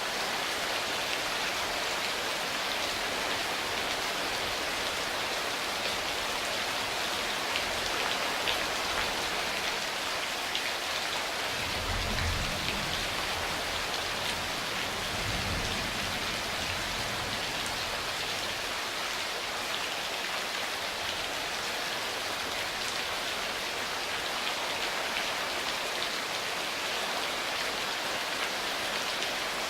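Steady heavy rain, a dense hiss of drops pattering on surfaces. A low rumble of distant thunder rolls in about twelve seconds in and fades after a few seconds.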